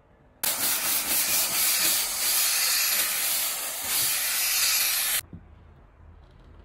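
Steam cleaner jetting steam in one steady hiss that starts suddenly about half a second in and cuts off sharply about five seconds in.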